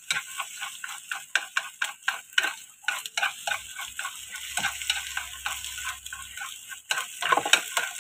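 Wooden chopsticks tapping and scraping against a frying pan in quick, irregular strokes, several a second, breaking scrambling egg into small pieces, over a light sizzle.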